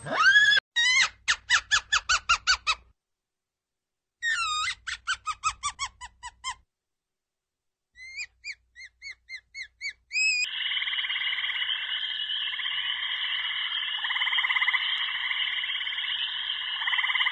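Animal calls: three runs of quick, repeated chirping calls, about four or five a second, separated by short silences. From about ten seconds in, a steady, dense chorus of many calls takes over.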